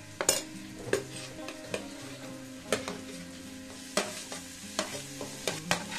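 Vegetables sizzling in oil in a steel kadai, with a steel ladle scraping and knocking several times against the pan and a china plate as chopped tomato goes in. Soft background music with held notes runs underneath.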